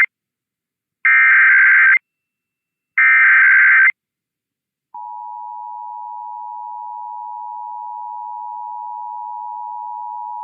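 Emergency Alert System SAME header: the end of one short, shrill digital data burst, then two more of about a second each, a second apart. About five seconds in, the steady two-tone EAS attention signal starts and holds. Together they mark the start of an alert, here a required monthly test.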